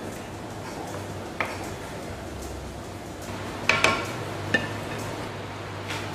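A black cooking spoon stirring a pan of thick curry, knocking and clinking against the pan a few times, with the loudest knocks about four seconds in, over a steady low background hum.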